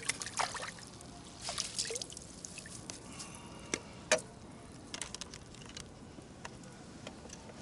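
Pond water splashing and dripping as a landing net is dipped in to release a large herabuna (Japanese crucian carp), then scattered drips and small splashes, the sharpest about four seconds in.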